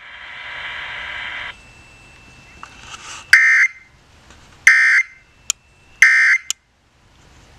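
Emergency Alert System broadcast audio: a buzzing tone for about a second and a half, then three short, equal bursts of the warbling SAME digital data tones, evenly spaced about a second apart.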